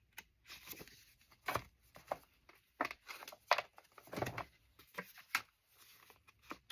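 Paper index cards being handled and sorted by hand: a string of short, irregular rustles and light taps, the loudest a little past the middle.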